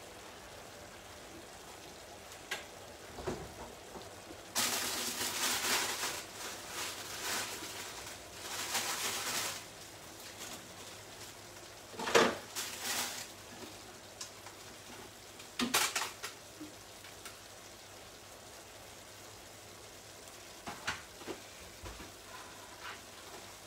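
Crab and prawn tomato sauce sizzling in a pan, in a hissing stretch of about five seconds, then a few sharp clinks of pans or utensils, the loudest about halfway through.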